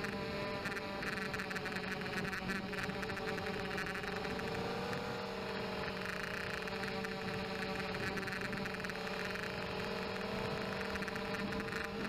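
Blade 200QX quadcopter's four motors and propellers whining steadily, heard through the onboard keychain camera's microphone, the pitch rising and falling slightly with throttle around the middle.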